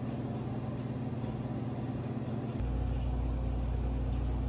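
Steady low hum of a room air conditioner, louder from about two and a half seconds in.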